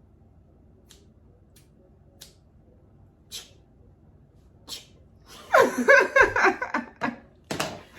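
A person making sounds with the mouth: five short breathy hisses spaced about a second apart, then a loud run of voiced vocal noises without clear words, and one more hiss near the end.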